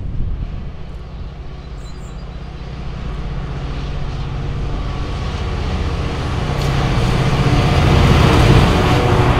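A Class 66 diesel-electric locomotive, with a two-stroke EMD V12 engine, approaches and passes close beneath. Its steady engine note and the rumble of the train grow louder and are loudest near the end as the locomotive goes under.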